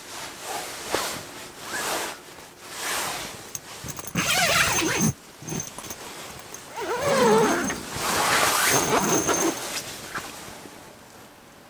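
Canvas tent's zipper being drawn open: a few short rasping pulls about a second apart, then two longer, louder runs, with the fabric rustling as the panel is pulled aside.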